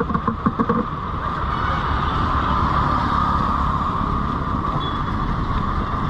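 Steady hum of road traffic, vehicles running past, settling in about a second in after some brief clatter.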